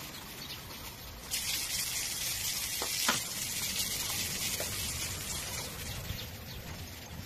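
Water running from a garden hose onto potted plants: a steady hissing spray that gets louder about a second in. A short knock sounds about three seconds in.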